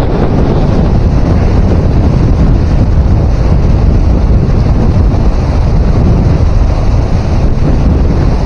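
Strong wind buffeting the microphone: a loud, steady rumbling noise with no break.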